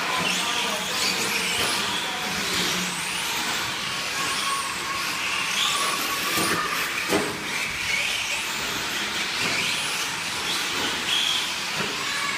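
Electric 4x4 RC short-course trucks racing on a dirt track: brushless motors whining, rising and falling with the throttle, with tyres hissing on the dirt. A few knocks, the clearest about seven seconds in, as the trucks hit the ground.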